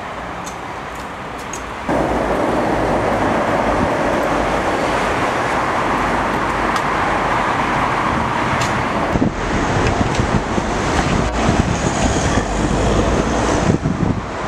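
Steady road traffic noise, jumping louder about two seconds in. Near the end a car drives off close by.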